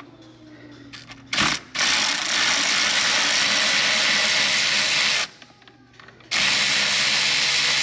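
Power tool spinning a 10 mm socket on a long extension to loosen intake manifold bolts, run in steady spurts: a short blip, a long run of about three seconds, a pause, then a shorter run near the end.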